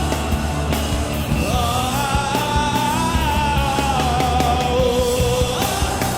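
Worship band playing rock-style music, with steady drums and a held lead melody that rises and then falls.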